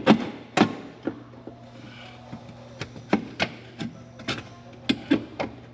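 Irregular sharp clicks and knocks of hand tools and parts being handled during engine work, over a steady low hum.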